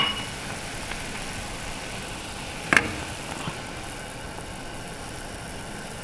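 Pot of tomato and chicken-stock soup at a rapid boil, bubbling steadily, with one brief knock a little under three seconds in.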